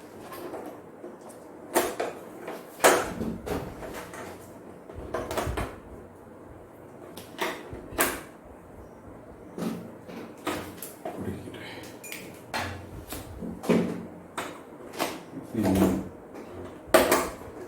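Handling noise from an LED TV being taken apart: irregular clicks, knocks and plastic rattles as its panel parts and covers are lifted and set down.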